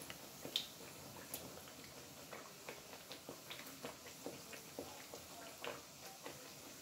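Pandan cucur batter deep-frying in hot oil in a wok: a faint sizzle with irregular small crackles and pops.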